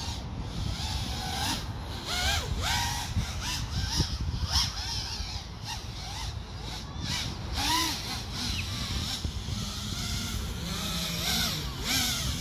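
FPV racing quadcopter's brushless motors and propellers whining, the pitch swooping up and back down again and again as the throttle is punched and released, over a low rumble of wind on the microphone.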